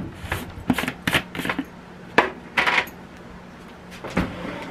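Kitchen handling noises: a large plastic jar set down on the stovetop, then a utensil drawer pulled open and metal measuring cups and spoons clattering as they are rummaged through. The sounds come as a series of separate knocks and clinks, with one longer scrape about two and a half seconds in.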